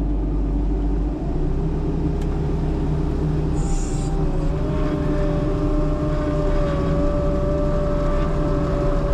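Skid loader engine running steadily under way, with a steady whine joining about halfway through.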